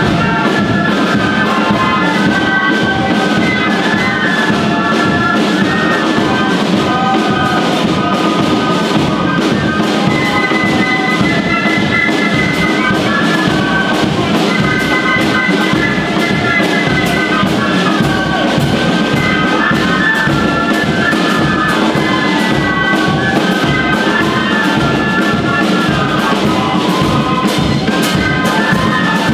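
Brass band with trumpets, trombones and drums playing a tune with a steady beat.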